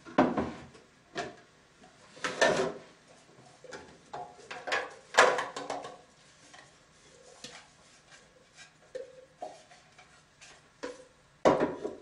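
Irregular knocks, clinks and clatter of juicer pulp containers and bowls being handled as juice pulp is tipped and tapped out into bowls on kitchen scales.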